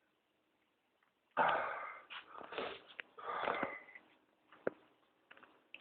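A person with whooping cough (pertussis) in a coughing fit. After a short silence, wheezing gasps and coughs start suddenly about a second and a half in, then fade to a few weaker gasps near the end.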